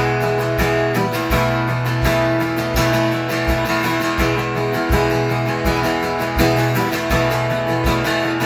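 Worship band playing an instrumental interlude in the key of E: strummed guitar over held chords, with a steady low beat and no singing.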